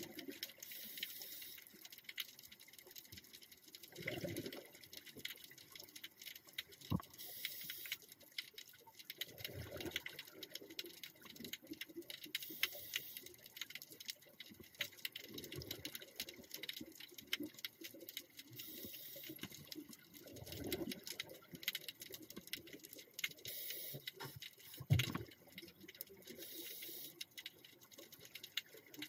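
Scuba diver breathing through a regulator underwater: a short high hiss on each inhale alternates with a low burst of bubbles on each exhale, the cycle repeating about every five to six seconds. A constant crackle of small clicks runs underneath.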